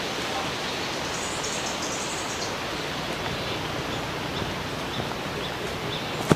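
Steady outdoor rushing noise with no chainsaw running, and a few faint high chirps in the first half.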